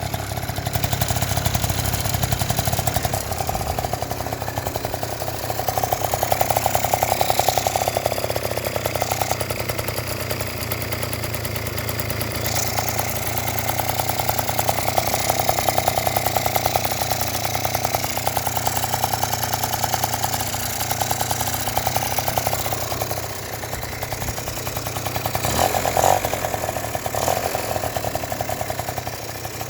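Yamaha Jog scooter engine idling steadily, with the throttle blipped a few times so that it rises and falls in pitch.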